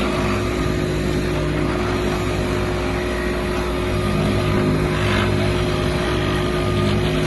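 Excavator-mounted Pladdet hydraulic vibratory plate running on top of a wooden post, vibrating it down into the ground, over the mini excavator's diesel engine. It is a loud, steady hum with one constant tone above it.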